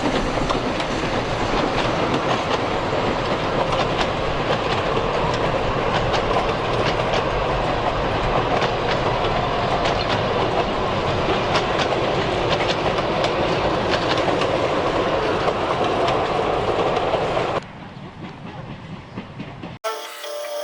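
A train running along the track, a steady rumble with scattered clicks of wheels over rail joints. It drops away abruptly about three seconds before the end, and music begins just before the end.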